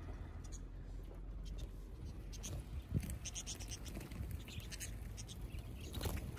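A flock of wild budgerigars chattering in many short, high chirps, with light scratching and pattering of their feet on the vehicle's roof, over a steady low rumble.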